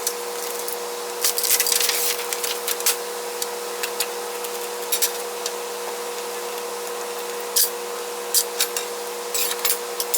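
Saw parts and clamps being handled on a metal table: scattered clicks and short scrapes, a cluster about a second and a half in and more near the end, over a steady hum.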